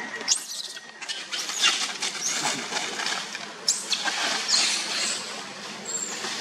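Dry fallen leaves rustling and crunching in a series of short crackly bursts as macaques scamper over leaf litter. A brief high chirp comes near the end.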